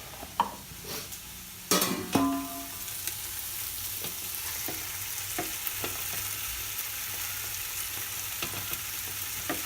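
Tomatoes go into a pan of onions and spices frying in ghee. There is a loud clatter of a utensil on the pan about two seconds in, then steady, louder sizzling, with the spatula tapping and scraping the pan as it is stirred.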